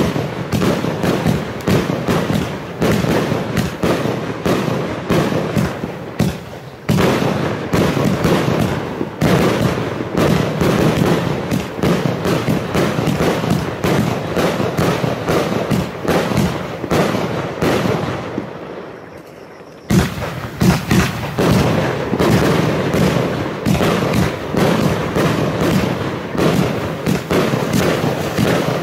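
Funke 'Fireball' 200-shot consumer firework compound firing: a dense, continuous run of bangs and crackling shots. It eases into a brief lull about two-thirds of the way through, then picks up again with a sudden bang.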